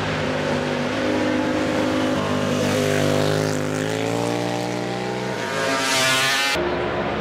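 Classic racing motorcycle engine running hard through the gears: its pitch climbs and then drops at each of about three shifts. It swells louder near the end and then cuts off abruptly.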